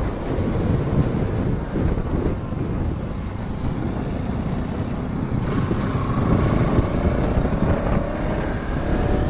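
Wind rushing and buffeting over the microphone of a moving vehicle, over steady engine and road noise. From about halfway a faint engine note rises slowly.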